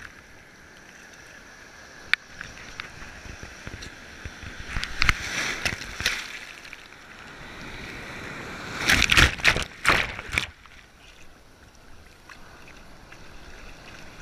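Shallow sea surf sloshing around a camera held at water level, with loud, irregular splashes about five seconds in and again around nine to ten seconds in.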